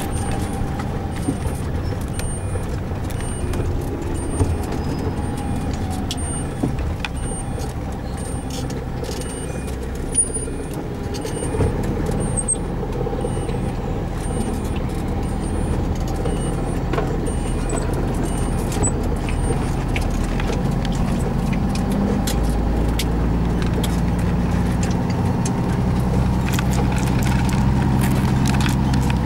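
Heavy truck engine of a Sisu E12 480 slurry pump-loader (Mack engine) running steadily. Its note deepens and grows louder about twelve seconds in and again a little past twenty seconds. A faint high-pitched beep repeats about every half second through the first two-thirds.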